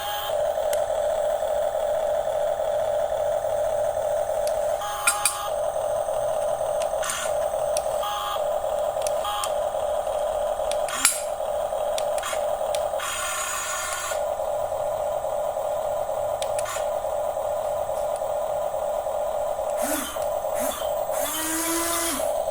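Electric motors and gearboxes of a remote-control construction model whining steadily, with a few sharp clicks, a scraping stretch a little past the middle, and short rising and falling whines near the end.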